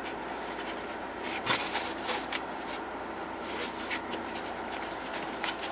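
Scattered light clicks and rustles of hands handling a resin 3D printer and its packaging, with a sharper knock about one and a half seconds in, over a faint steady hum.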